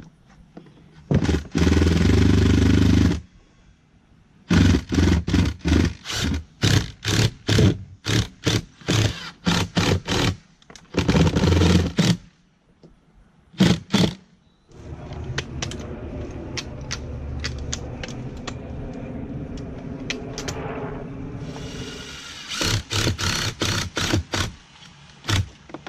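Power drill driving screws through a shutter into the house wall. It runs for about two seconds, then gives many short trigger bursts as the screws are seated, runs more steadily and lower for several seconds, and finishes with another string of short bursts near the end.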